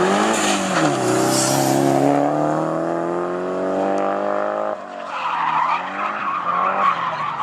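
Nissan 240SX drifting: its engine is held high in the revs with the pitch slowly climbing, then drops off suddenly a little past halfway, while the tyres squeal and skid, the tyre noise taking over toward the end.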